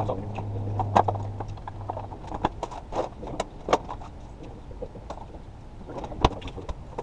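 Metal hand tools clinking and clattering as they are rummaged through in a workbench drawer: a string of sharp, irregular clicks and knocks.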